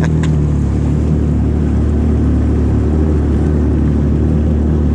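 Jet ski engine idling steadily, an even low drone with no revving.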